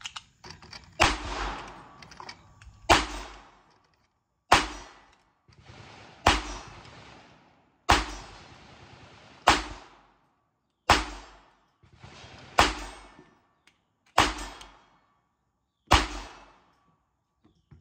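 A string of about ten pistol shots from a Glock 42 .380 pocket pistol, fired at a steady pace about a second and a half to two seconds apart. Each shot is a sharp crack that trails off in a short ring.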